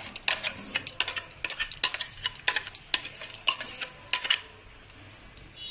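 A metal spoon scraping and knocking inside a steel mixer-grinder jar as thick mango pulp is scraped out of it. It makes a quick, irregular run of sharp clinks that stops about four seconds in.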